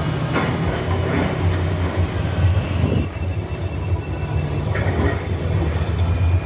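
Heavy diesel construction machinery running steadily: a Komatsu PC138US excavator working with an Arjes 250 mobile shredder. Irregular knocks and crunches sound over the low drone as material goes through the shredder.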